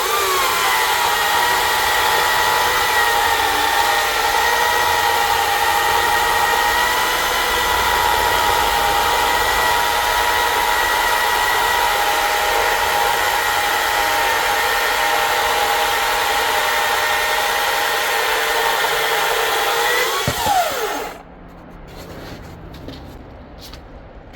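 Greenworks 82CS34 battery chainsaw with an Oregon PowerCut skip-tooth chain on a 24-inch bar, cutting through red oak. Its electric motor gives a steady high whine over the noise of the chain chewing wood, and the pitch sags slightly under load. About 20 seconds in, the motor winds down with a falling whine and stops.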